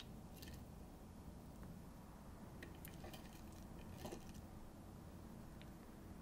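Faint, scattered light ticks and rustles of chopped onion and cilantro being sprinkled by hand onto tacos, over quiet room tone.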